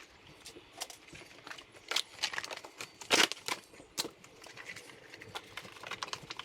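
New folding mountain bike tyres being handled and flexed into shape: rubber rustling and creaking with light knocks and taps, and a louder rustle about three seconds in.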